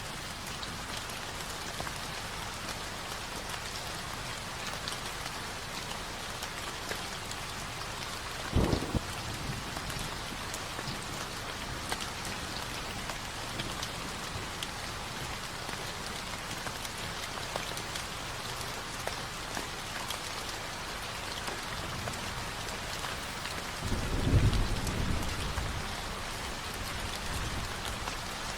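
Steady rain falling, with thunder rumbling twice: a short rumble about a third of the way in and a longer, louder one near the end.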